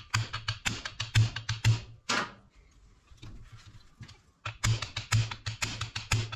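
Small hammer lightly tapping around a turbocharger's turbine housing, quick sharp metal taps about five a second, in two runs with a pause of about two seconds between them. The tapping is working loose the corroded joint to separate the turbine housing from the centre housing.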